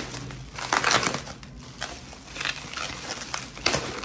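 Plastic bubble wrap crinkling and rustling in the hands as a package is unwrapped, in irregular crackles, loudest about a second in and just before the end.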